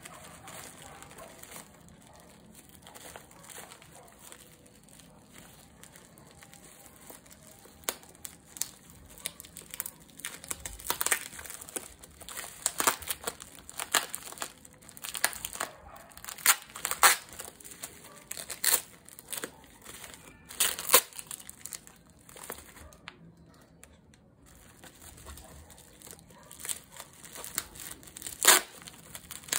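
Plastic bubble-wrap mailer crinkling under the fingers while its packing tape is picked at and peeled off. Soft rustling at first, then frequent sharp, irregular crackles from about eight seconds in.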